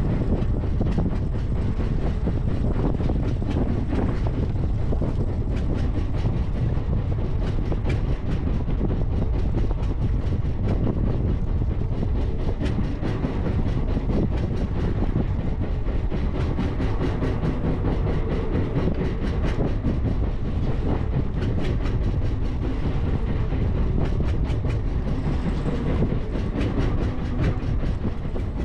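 Steady low rumble of wind and a small boat at sea, with a fast, even clicking running through it.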